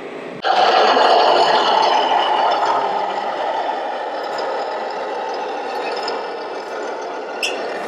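Loud rattling, scraping clatter from a radio-controlled model vehicle at work. It starts suddenly about half a second in and eases off gradually.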